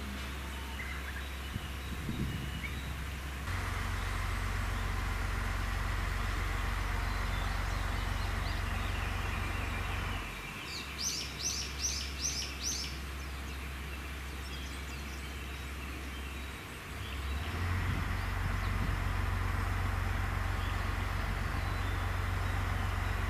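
Diesel railcar engine running with a steady low hum that steps up and down in level a few times. A bird calls a quick series of five high notes midway through.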